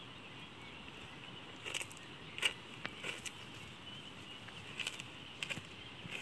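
Goat chewing a mouthful of bread, making irregular crunching clicks: a cluster about two to three seconds in and a few more near the five-second mark.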